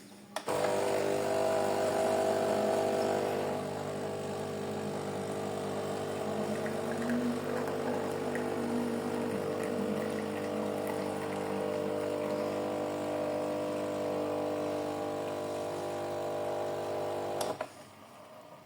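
Philips Senseo coffee pod machine brewing, its water pump running with a steady hum that starts about half a second in, eases slightly after a few seconds, and cuts off about a second before the end.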